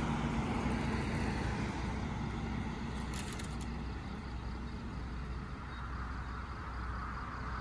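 Steady low rumble of road traffic outdoors, with a short crackle about three seconds in.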